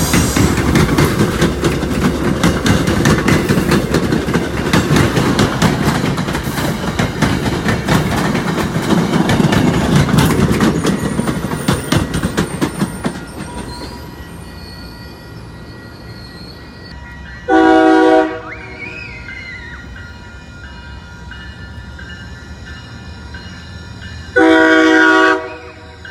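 An MBTA train passing close by, its wheels clattering over the rail joints, fading out about halfway through. Then two short, loud blasts of the train horn, each about a second long and several notes sounding together, some seven seconds apart.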